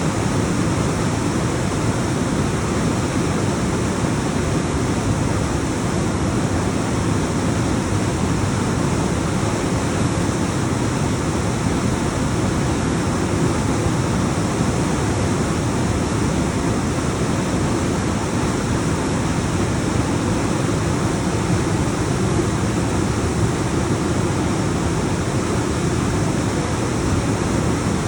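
Alpine waterfall: a continuous, steady rush of water tumbling down rocks, strongest in the low end.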